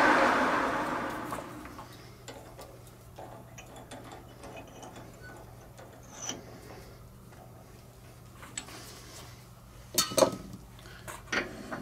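Metal lathe running down after drilling, its noise fading out over the first couple of seconds. Then light metallic clicks and clinks of metal tools being handled, with a sharper clank about ten seconds in.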